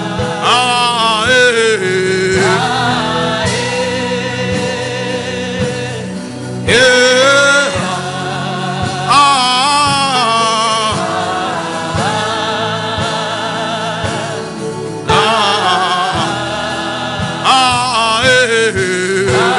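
Gospel song: a solo voice singing phrases with vibrato over sustained backing chords and a steady beat.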